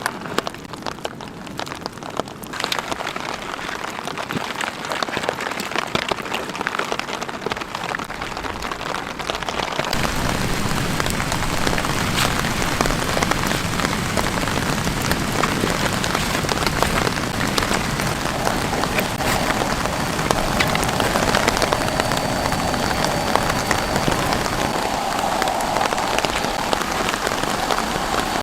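Steady rain falling on a surface, a dense spread of small drop hits that gets fuller and louder about ten seconds in.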